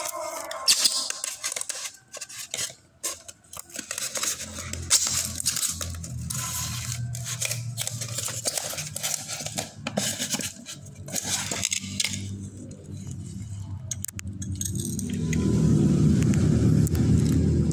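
Handling noises from unpacking a boxed water pump: a run of taps, clicks, scrapes and tearing. A low rumble builds up about fifteen seconds in and stays loud to the end.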